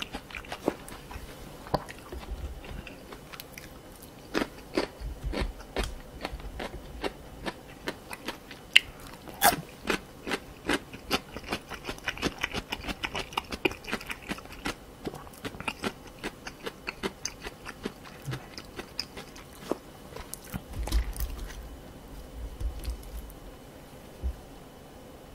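Close-miked chewing of spicy stir-fried cartilage (pork cartilage and chicken feet), with many irregular wet crunches and sharp clicks as the gristle is bitten through. It gets sparser near the end.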